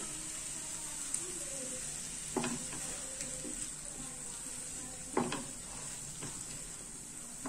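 Mushrooms and bell peppers sizzling in butter in a frying pan while being stirred with a spatula. A steady sizzle runs under a few sharper scrapes of the spatula on the pan, about two and a half seconds in and again about five seconds in.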